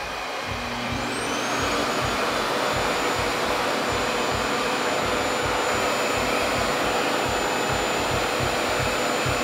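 RevAir reverse-air dryer (a suction hair dryer) switched on at airspeed setting 2 and high heat. Its fan spins up over the first second or so with a rising high whine, then runs steadily as a loud rush of air with the whine holding one pitch.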